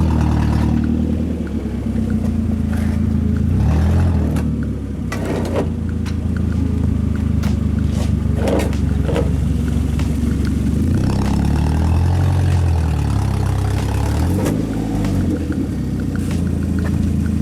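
Car engine running through a loud modified exhaust, its pitch rising and falling a few times with the throttle. A few sharp knocks sound around the middle.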